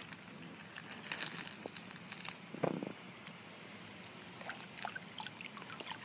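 Faint water sloshing and small splashes as clear plastic containers are dipped into shallow creek water and pushed through it, with scattered light ticks and one slightly stronger splash or knock about two and a half seconds in.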